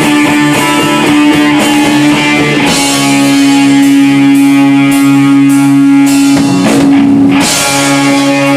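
Live rock band playing on electric guitars, bass guitar and drums, moving from quick changing notes to long held chords about three seconds in, with a chord change near the end.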